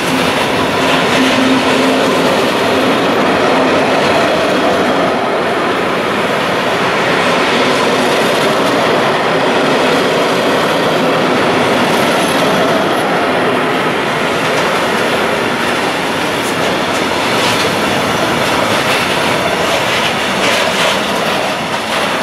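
Container freight train's wagons rolling past close by at speed: a steady, loud rumble and rattle of wheels on rail, with sharper clacks in the last few seconds.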